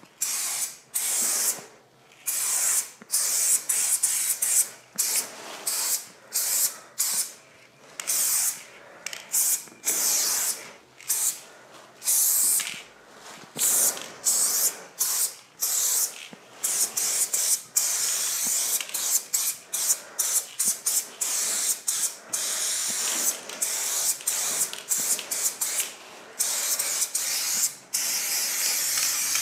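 Aerosol spray paint can hissing in many short bursts with brief gaps between strokes, then spraying steadily for a longer stretch near the end.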